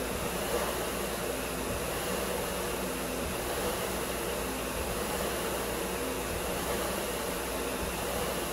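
Concept2 SkiErg's air-resistance fan flywheel whirring steadily. A short low hum recurs about every one and a half seconds as each pull on the handles spins it up.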